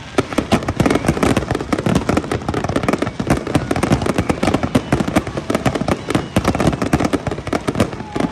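Fireworks going off in a dense, continuous volley of bangs and crackles, many per second.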